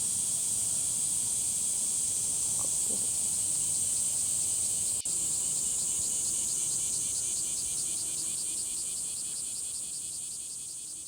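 Insects chirping: a steady high shrill with a rapid trill over it, broken by a brief dropout about five seconds in, then fading out near the end.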